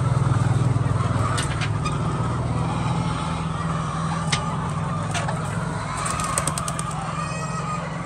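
Flock of laying hens clucking and calling in a shed over a steady, loud low hum from a machine. There are a few sharp clicks, including a quick cluster of them about six seconds in.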